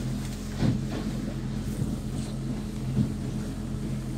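Boat motor running steadily at slow survey speed, a constant low hum with a faint noise of wind and water beneath it. Two brief knocks come through, about a second in and again near three seconds.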